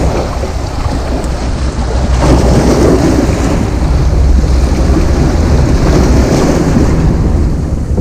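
Wind buffeting the camera's microphone in a loud, steady low rumble, over the hiss of rough surf breaking against the rocks.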